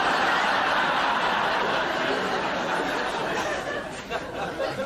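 Studio audience laughing, a dense wave of laughter that holds and then dies away over the last second or so.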